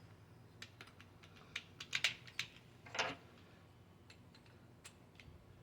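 Scattered light clicks and taps from handling a concealed-hinge drilling jig and door, with a few sharper knocks about two to three seconds in.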